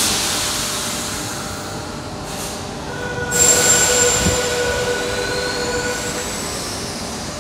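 Sydney Trains Tangara electric double-deck train moving out along an underground platform: a steady rumble that echoes in the station. About three seconds in, high steady squealing tones join it and fade over the next few seconds, and a brief low thump comes partway through.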